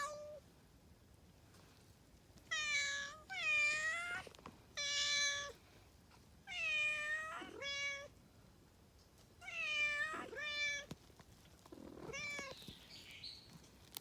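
A talkative cat meowing repeatedly: about eight clear meows in short groups of one or two, each dipping briefly in pitch before levelling off, with pauses between the groups.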